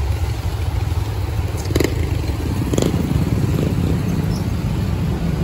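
Steady low rumble of a moving road vehicle, engine and road noise, with two short knocks about two and three seconds in.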